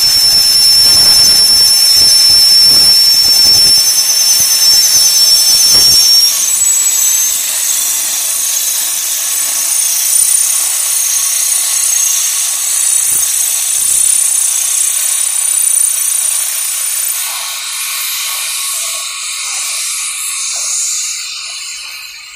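Steam locomotives letting off steam: a loud, dense hiss with a shrill high tone over it. The tone changes pitch about six seconds in, the low pulsing stops at the same point, and the hiss thins out over the last few seconds.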